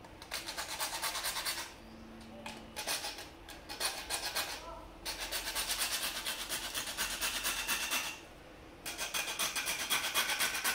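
Hand hacksaw blade sawing through PVC pipe in quick back-and-forth strokes, about four to five a second, in several runs with short pauses between them.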